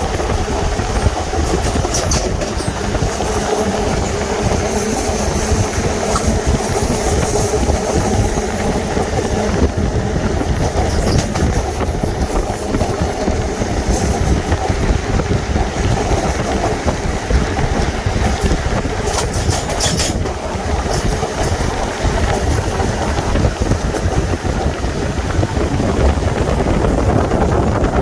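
Seoul Subway Line 2 electric train running steadily across a steel railway bridge, a continuous rumble of wheels on rail with rhythmic clatter. Wind gusts crackle against the microphone now and then.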